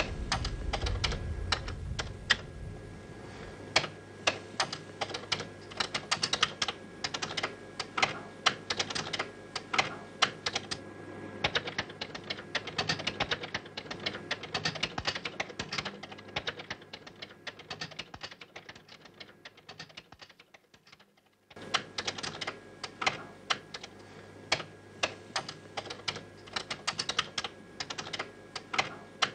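Fast, irregular typing on a computer keyboard, a dense stream of key clicks. It fades away about 20 seconds in and then starts again abruptly.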